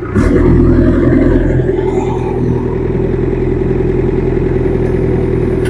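JCB 3DX backhoe loader's diesel engine running, its note stepping up about a quarter second in and then holding steady as the hydraulics are loaded by working the bucket and boom.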